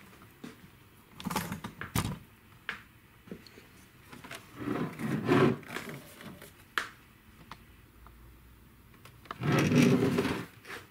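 Handling noises: a few sharp clicks and knocks about a second or two in, then two longer rubbing, scraping sounds, one near the middle and one near the end.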